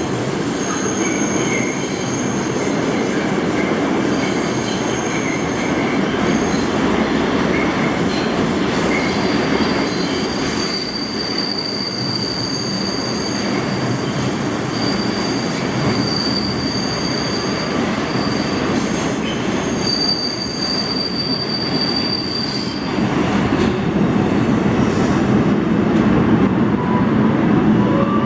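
New York City subway train of R142/R142A cars running through the station, its wheels squealing in high, held tones that come and go over the steady rumble of the wheels on the rails. The rumble grows louder in the last few seconds.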